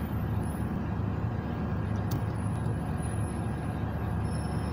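Steady low rumble of background noise, with one faint click about two seconds in.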